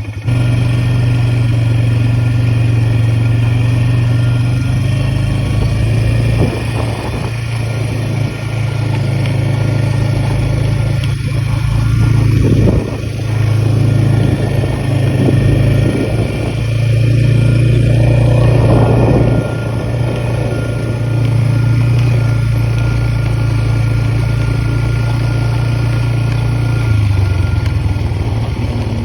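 All-terrain vehicle (four-wheeler) engine running steadily as it is ridden, the note shifting in level a few times, with rougher rattling stretches in places.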